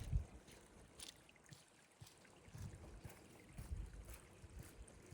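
Faint walking sounds on a forest track: low thuds roughly once a second with wind rumbling on the microphone and a few sharp ticks.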